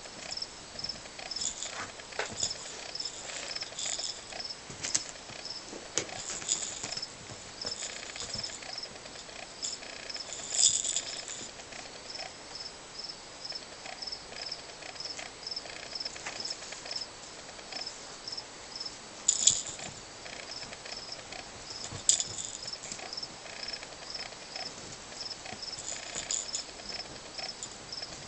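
Crickets chirping in an even, high-pitched rhythm about twice a second, with a few brief louder high chirps and scattered light taps and rustles.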